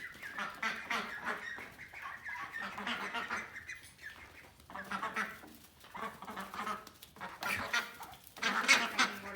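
A flock of domestic ducks quacking and chattering in bunches of short calls, with brief lulls between the bursts.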